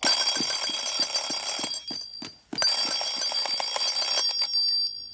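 Old-fashioned desk telephone's bell ringing: two rings of about two seconds each with a short pause between them.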